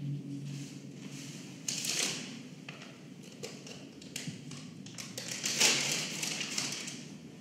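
A sheet of paper rustling and crackling as it is handled and unfolded, with a burst about two seconds in and a longer, louder one around six seconds, and small taps and crinkles in between.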